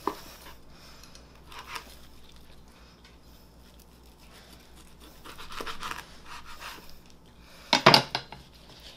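Chef's knife slicing through a seared duck breast on a plastic cutting board, scraping and crunching through the crisp skin and knocking on the board. A louder clatter comes near the end as the knife is laid down on the board.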